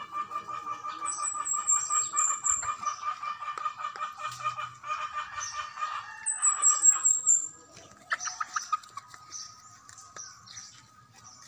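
Free-range backyard chickens clucking, against a rapid, even pulsing call that stops about six seconds in and two quick falling runs of high bird notes. Quieter from about eight seconds in.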